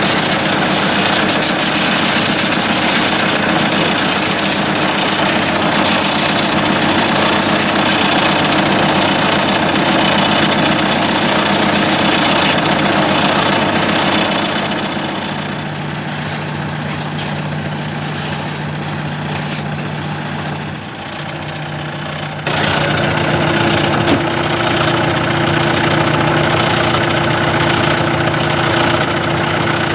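John Deere tractor's diesel engine idling steadily, with a loud hiss over it for roughly the first half. It turns quieter partway through, and after an abrupt change near the end the engine idles on at full level without the hiss.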